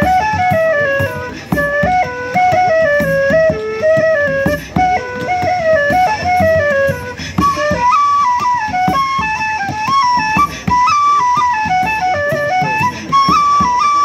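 A live folk band plays a traditional Irish tune, with a flute carrying a quick, ornamented melody over a rhythmic accompaniment. About halfway through, the melody jumps up to a higher register.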